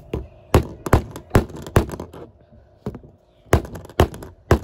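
Claw hammer striking an AirPods charging case wedged in a plastic pencil sharpener: sharp knocks of steel on plastic. They come in two runs, about four quick strikes, a pause of over a second, then three more.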